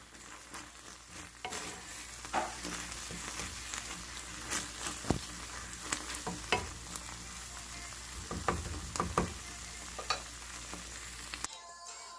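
Food sizzling in a frying pan, with scattered clicks and scrapes of a utensil stirring it. The sizzling cuts off near the end.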